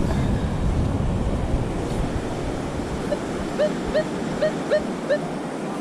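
Surf and wind buffeting the microphone. About three seconds in, a Minelab Equinox metal detector beeps about six times in two seconds, short mid-pitched tones as the coil is swept back and forth over a deep target.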